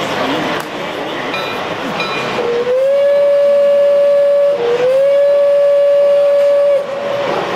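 Gauge 1 model steam locomotive's whistle sounding two long blasts, each opening with a short upward slide in pitch before holding one steady note.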